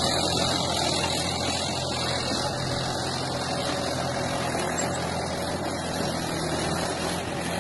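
Farm tractor's diesel engine running steadily under load while pulling a two-bottom hydraulic reversible plough through dry soil.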